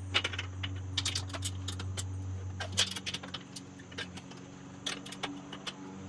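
Screwdriver loosening screws on a steel garage door track bracket: irregular light metallic clicks and taps, thicker in the first few seconds and sparser after.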